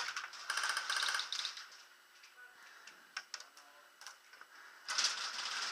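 Airsoft electric rifle firing in rapid full-auto bursts: one quick burst of evenly spaced clicks about half a second in, a few single clicks after it, and another rattle of shots near the end.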